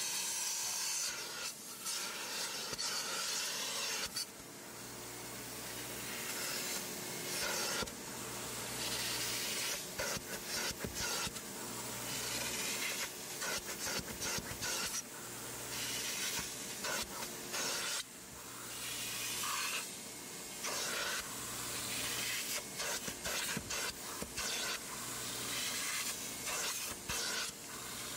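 Aqua Pro Vac hot-water extractor sucking through its clear upholstery tool as it is drawn in repeated strokes over a cloth car seat: a steady suction hiss that rises and falls with each pass. A low hum comes and goes every few seconds.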